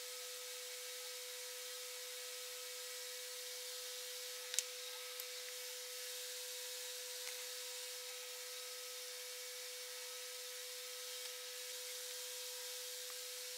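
Steady background hiss with a constant hum, and one sharp click about four and a half seconds in.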